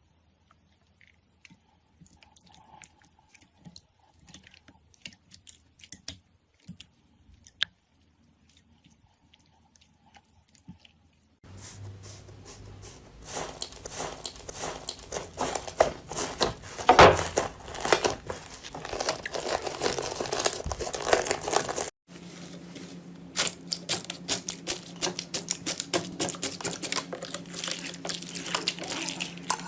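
Slime being squeezed and pressed by hand: sparse soft clicks and pops at first, then about a third of the way in a dense crunchy crackling that is loudest around the middle. After a brief break, a second stretch of crackling follows over a low steady hum.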